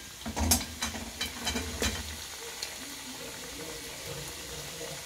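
Karchikai pastries deep-frying in oil in a cast-iron kadai: a steady sizzle, with sharp crackles in the first two seconds that then settle.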